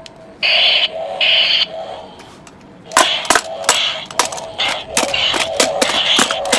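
Toy lightsaber's electronic sound effects: two short bursts of its energy hum, then from about three seconds in a quick run of sharp clash sounds over a continuing hum.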